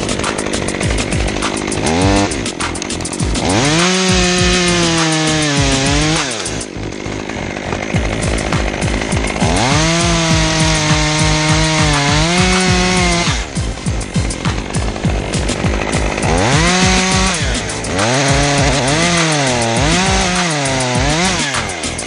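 Chainsaw revved up three times, holding high speed for a few seconds each time with the pitch sagging and recovering, and dropping back to a rough idle between.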